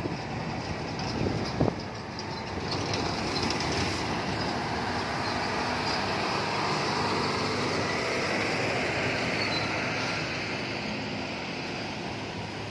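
Heavy diesel trucks passing on a road: a steady engine rumble with tyre and body noise, and a couple of sharp knocks about a second and a half in. The noise swells for several seconds in the middle as a truck goes by.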